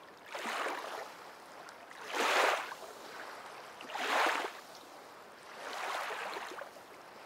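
Small waves washing on a sandy shore in four gentle swells, about one every two seconds.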